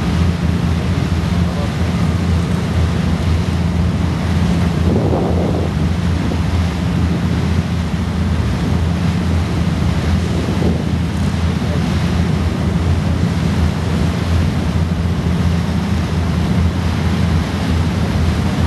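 Boat engine running at a steady low drone, with wind buffeting the microphone and water rushing past the hull.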